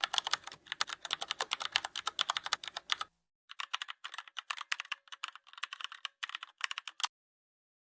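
Rapid, dense clicking in two runs of about three and three and a half seconds, with a short break between, like fast typing on a keyboard.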